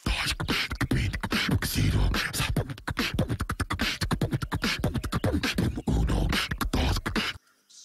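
A person beatboxing: a fast run of mouth-made clicks and hisses with deep kick-drum thumps, stopping abruptly near the end.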